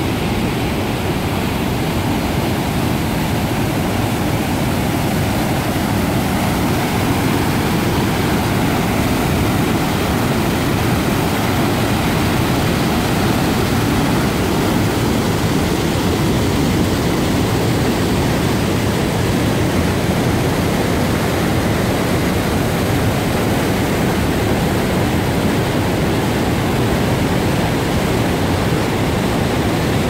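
Mountain river rapids: whitewater rushing over and around boulders in a loud, steady, deep rush of water.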